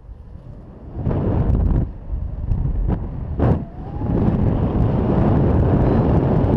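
Wind buffeting the camera microphone in paraglider flight: a low, gusty rush that comes in about a second in, dips twice, then holds steady and loud from about four seconds on.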